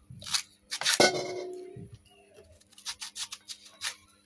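Kitchen prep sounds: about a second in, a ringing clink of a utensil or dish. Near the end, a quick run of about five sharp knife taps on a cutting board as a mango is cut.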